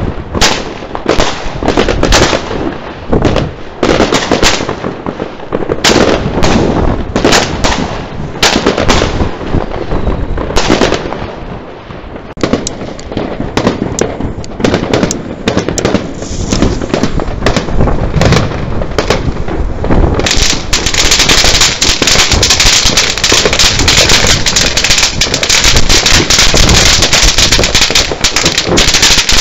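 Fireworks going off: a loose series of sharp bangs and crackling bursts. About two-thirds of the way in, a dense, unbroken rattle of rapid small bangs sets in and keeps going.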